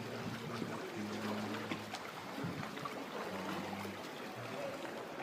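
Sea water lapping and splashing around a canoe, with wind rumbling on the microphone. A low steady hum comes in twice, for about a second each time.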